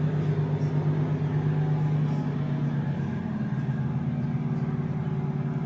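A steady engine-like drone with a strong low hum and overtones, its pitch dropping slightly a little past halfway.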